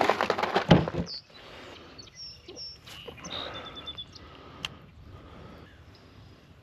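Plastic bag crinkling loudly with a thump about three quarters of a second in, stopping about a second in. After that, birds give short, high chirps on and off over a quiet background.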